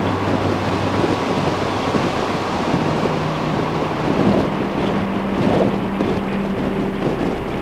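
Wind rushing over the microphone at highway speed, over the steady drone of a Harley-Davidson Fat Boy's V-twin engine and tyre noise, with a low hum that shifts in pitch a couple of times.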